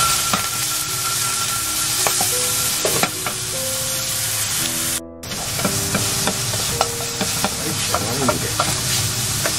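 Sliced beef belly sizzling in hot oil in a frying pan, stirred and scraped with a wooden spatula, with scattered clicks of the spatula on the pan. The sound cuts out briefly about halfway.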